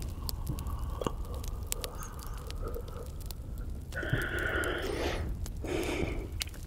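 Crackling campfire sounds laid over the track: scattered sharp pops and snaps over a low steady hum. About four seconds in and again near six seconds there are two soft breathy stretches from the smoker, close on the microphone.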